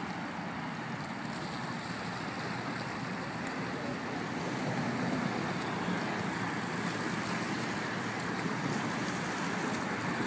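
Steady waterfront ambience: a constant rush of wind and small waves lapping on choppy water, with no distinct events, growing slightly louder about halfway through.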